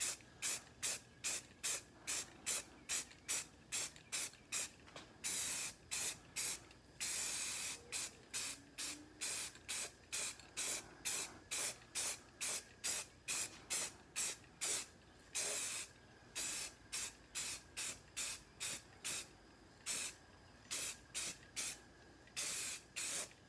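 Aerosol can of Rust-Oleum 2X flat grey spray paint hissing in short bursts, about two to three a second, with a few longer sprays held for under a second, as paint is laid over a foam model jet's fuselage.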